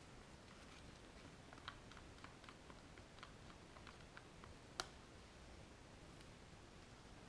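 Faint, scattered light clicks and taps of small objects being handled, with one sharper click a little under five seconds in.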